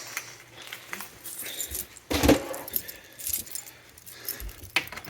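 Jingling and clicking of small metal objects being handled, with a louder bump about two seconds in.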